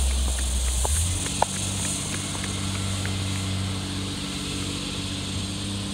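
Garbage truck engine running as the truck pulls away down the street: a heavy low rumble that settles about a second in into a steady low hum. Faint short high chirps sound over it.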